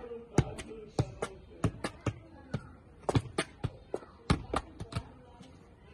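Soccer ball being juggled: a quick, uneven run of sharp thuds as it strikes the player's feet and knees, about three touches a second, stopping shortly before the end.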